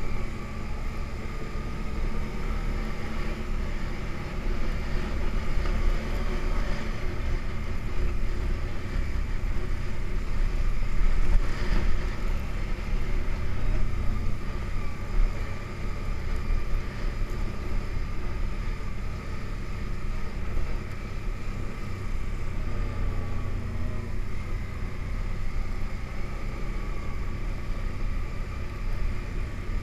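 ATV engine running steadily while riding, a constant engine note over a low rumble. There is a brief louder spot about twelve seconds in.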